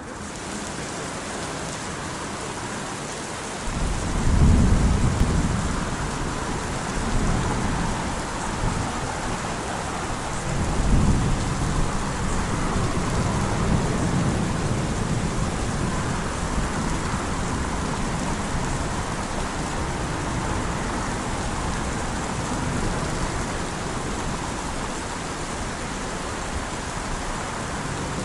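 Steady rain falling, with rolls of thunder rumbling in about four seconds in and swelling again around eleven seconds, a lower rumble lingering after.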